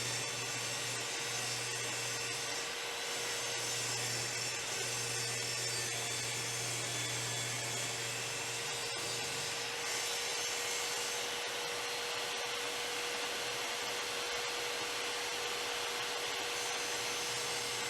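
10-inch table saw running steadily, ripping wood fence pickets, with a steady hum under the cutting noise.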